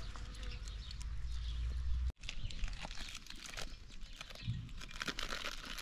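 Egg frying in oil in a pan over a wood fire, a hiss of sizzling with small crackles over a low rumble of wind on the microphone; about two seconds in it cuts off, and crinkling and light crunching follow as a plastic packet is handled.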